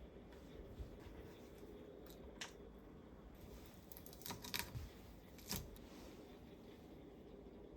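A few light, sharp clicks over quiet room tone: one about two and a half seconds in, a quick cluster past the middle and one more shortly after.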